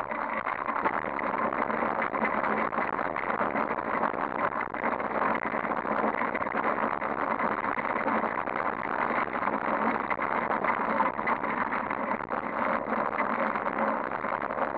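Steady rush of wind and tyre noise from a fixed-gear bicycle rolling along pavement, picked up by a handlebar-mounted action camera.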